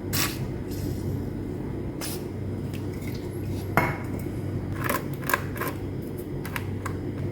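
Scattered light clicks and scrapes of small hand tools and metal parts being handled while the temperature-sensor connection of an induction cooker is cleaned of corrosion, over a steady low hum.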